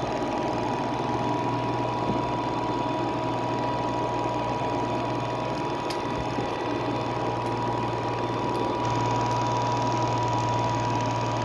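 Robot vacuum cleaner running: a steady motor and fan hum with a thin whine, getting a little louder about nine seconds in.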